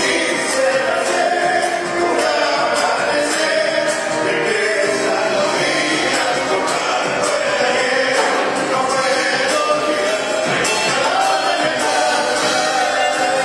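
Live Argentine folk band playing a gato, with singing over a steady percussive beat.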